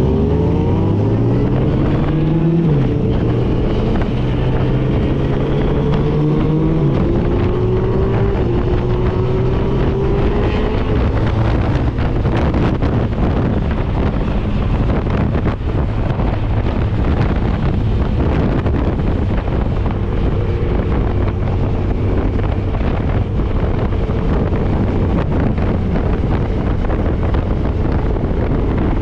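Motorcycle engine pulling hard through the gears, its pitch climbing and dropping at upshifts about two and a half and seven seconds in, then running at a steady cruise. Heavy wind buffets the microphone throughout.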